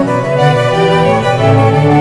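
Instrumental background music, a melody moving through short sustained notes.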